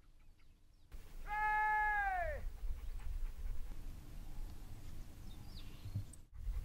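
A hunting dog gives one long baying howl, held level and then dropping in pitch at the end. A low rumble runs under it.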